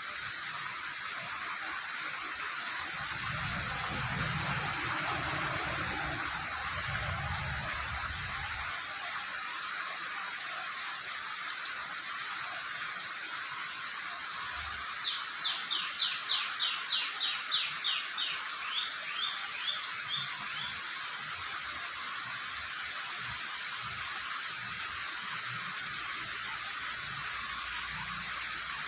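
Steady hiss of falling rain. About halfway through, a bird calls a quick run of a dozen or so short, sharp chirps lasting about five seconds; earlier a low rumble rises and fades over several seconds.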